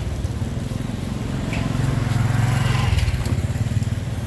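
Motor vehicle engine running as it passes close by, growing louder toward the middle and fading near the end.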